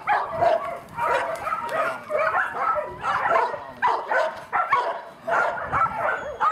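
A dog barking and yipping over and over, about three short barks a second without a break.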